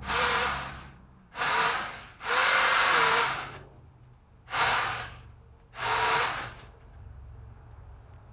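Pole saw motor run in five short bursts, each spinning up with a rising whine and winding down when released; the third burst is the longest, more than a second.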